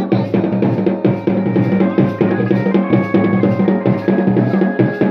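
Garhwali dhol-damau drums beaten with sticks in a fast, dense rhythm. Over the drumming, a melody of held notes comes in about a second in.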